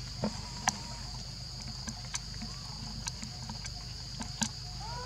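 A steady high-pitched insect drone, with a few sharp clicks and snaps scattered through it, the loudest about a second in and near the end.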